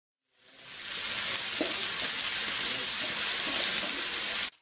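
Seasoned chicken strips sizzling in oil on a hot plow-disc griddle as more pieces are dropped on; a dense, steady sizzle that swells in over the first second and stops suddenly near the end.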